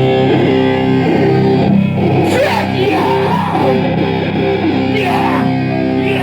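Distorted electric guitar ringing out held chords through the PA during a sound check, with a voice coming in over it twice, about two seconds in and again near the end.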